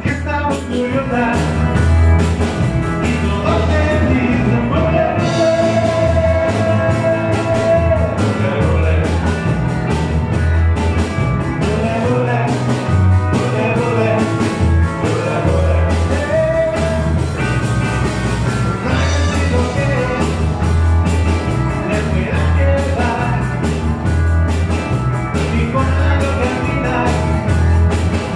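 Live rock and roll band playing an up-tempo song: electric guitars and bass over a steady drum beat, with singing.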